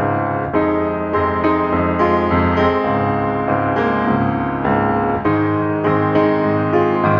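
Instrumental background music led by piano, with new notes struck about twice a second.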